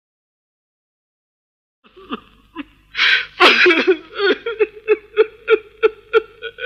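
Silence for about two seconds, then a man crying out loud: a wailing cry that breaks into a run of short, rhythmic sobs, about three a second.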